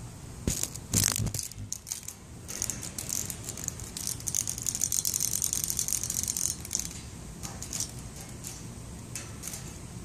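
Cicada giving a dry, ratcheting rattle of rapid clicks. A few sharp clicks come about a second in, and a denser buzzing run lasts from about two and a half to nearly seven seconds in, then fades to scattered clicks.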